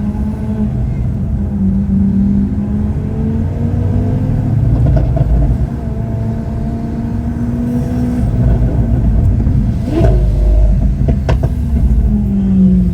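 Lamborghini Aventador SV Roadster's naturally aspirated V12 engine running while driving, its pitch mostly steady with a few rises and falls in revs. Two brief sharp sounds come near the end.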